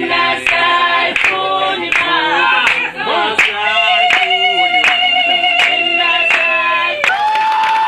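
Group singing in chorus with hand-clapping keeping a steady beat about twice a second, with a long held note in the middle of the phrase.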